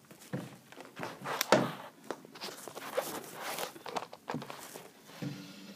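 Handling noise from a phone camera being picked up and set back down: irregular knocks and rustling, with one louder thunk about a second and a half in.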